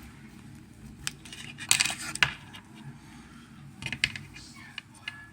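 Small hard clicks and scraping of repair tools against a Samsung Galaxy S6's frame while it is being pried open, with a louder clatter about two seconds in and another short cluster of clicks about four seconds in.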